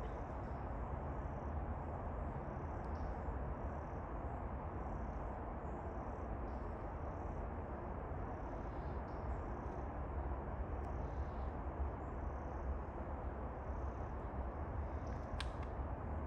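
Steady low outdoor rumble with faint, short, high chirps repeating about twice a second, and one sharp tick near the end.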